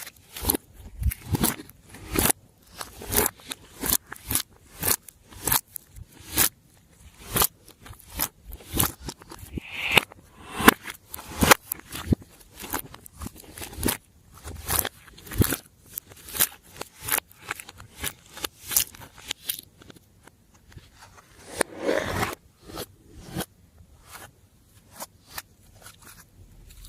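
Glossy slime being squished and pressed by hand: a run of sticky clicks and pops, two or three a second, with a couple of longer squelches, thinning out near the end.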